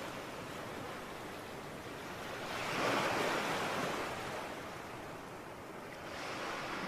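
Sea waves breaking on a shore: a steady wash that swells into one louder breaking wave about three seconds in, then eases back.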